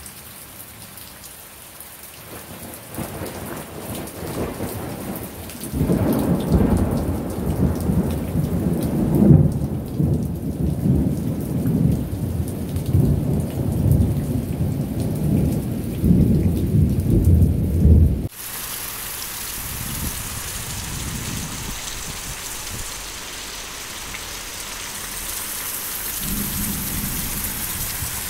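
Rain falling steadily, with a long rolling rumble of thunder starting about six seconds in and lasting some twelve seconds. The rumble cuts off suddenly and steady rain hiss follows.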